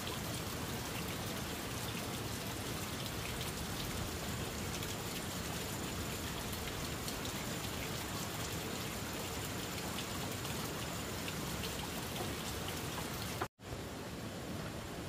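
Steady rain falling, an even hiss with scattered small drop ticks and a faint thin high tone above it; the sound cuts out for an instant near the end.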